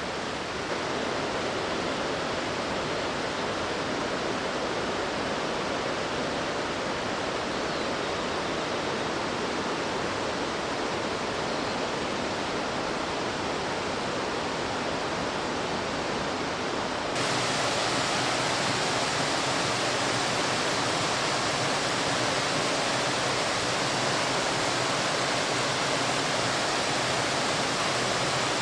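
Waterfall rushing, a steady wash of falling water. About two-thirds of the way through it jumps suddenly louder and brighter.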